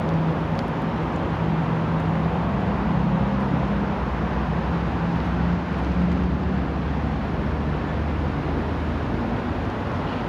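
Steady low engine hum over a wash of traffic noise, the hum fading over the last few seconds.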